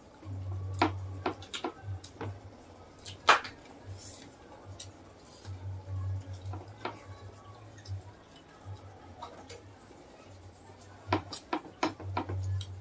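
Close-up eating sounds from two people eating soft, saucy food by hand: wet chewing, lip smacks and sharp mouth clicks scattered throughout, with one loud smack about three seconds in and a quick run of them near the end.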